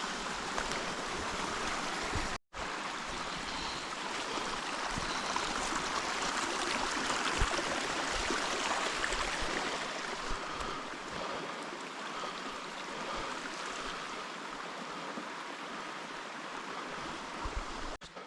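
Steady outdoor rushing noise, like running water, with a brief complete dropout about two and a half seconds in.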